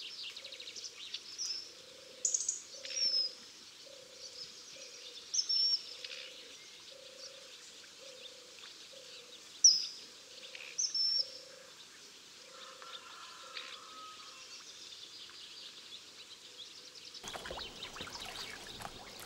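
Short, sharp bird chirps that dip in pitch, several of them loud, over a frog's low call repeating steadily a little more than once a second. Near the end the frog call stops and a rush of splashing water begins.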